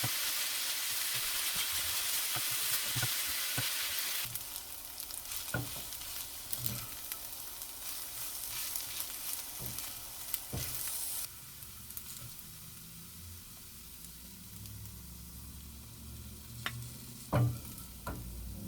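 Food sizzling in a hot frying pan as it is stirred, with scattered clicks of the utensil against the pan. The sizzle is loud at first, drops sharply about four seconds in, and quietens further around eleven seconds. A sharp knock comes near the end.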